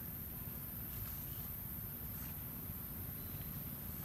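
Steady high-pitched insect drone over a constant low rumble, with a couple of faint short chirps.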